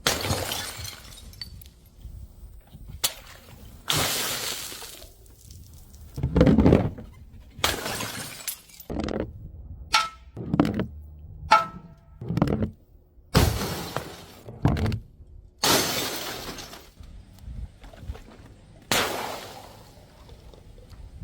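Glass bottles breaking again and again: about a dozen separate smashes with shattering glass, some long crashes and some shorter clinking impacts. Two of the hits, around the middle, leave a brief ringing tone.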